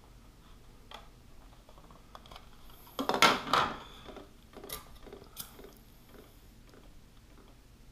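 Hands handling armor pieces and adhesive-backed Velcro: scattered light clicks and taps, with one brief louder rustling scrape about three seconds in.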